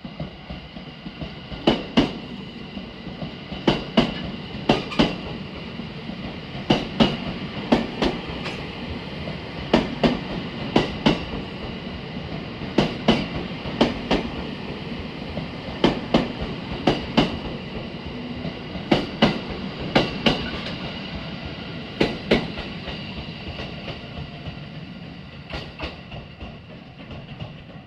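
JR 285 series Sunrise Express sleeper train passing slowly over rail joints: the wheelsets clack in close pairs, the groups coming every second or two, over a steady running rumble with a thin high whine.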